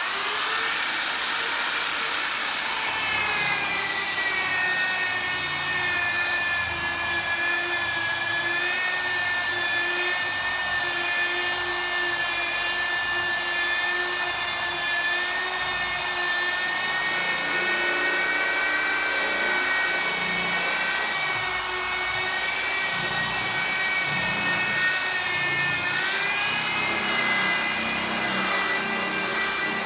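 Handheld electric rotary polisher running steadily with a foam pad pressed on a car's painted bonnet, working in polishing compound. Its motor whine settles a little lower about three seconds in and rises again near the end.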